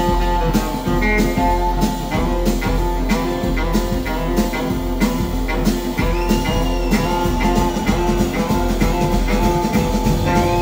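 Live band music: a Stratocaster-style electric guitar played over a drum kit keeping a steady beat, in a blues and rock-and-roll style.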